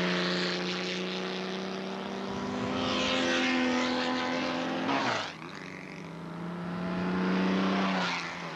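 Open-wheel race car engines running hard, the note slowly rising and falling as the cars lap. One car sweeps close past about five seconds in, and another near the end.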